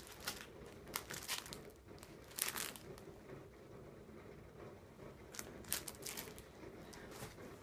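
Clear plastic sleeve around printed booklets crinkling as it is handled, in short scattered rustles, the clearest about two and a half seconds in and again about six seconds in.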